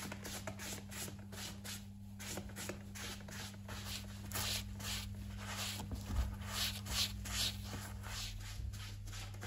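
Cloth rubbed back and forth over a leather shoe upper in quick, even strokes, about three a second, working a leather cleaner in to lift old wax and cream.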